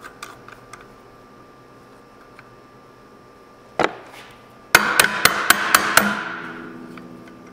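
Sharp knocks on metal clutch parts: a single knock, then about a second later a quick run of about six strikes, roughly five a second, with a ringing that fades away after.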